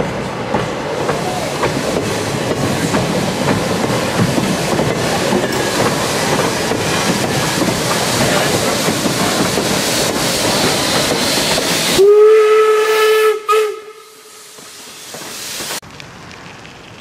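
Steam passenger train with a 4-4-0 locomotive rolling past at close range, a dense rumble with steam hissing. About twelve seconds in, the locomotive's single-chime steam whistle blows once on one steady note for about a second and a half, the loudest sound here, followed by a fainter low rumble.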